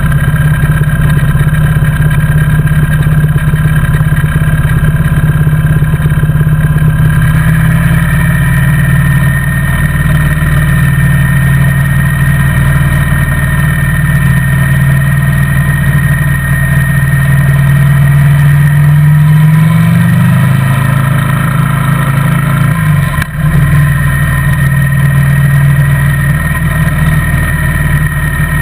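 Motorcycle engine running close and loud at a steady cruising pace. About twenty seconds in, its note climbs for a couple of seconds, then breaks off briefly as it shifts up a gear and settles at a lower pitch.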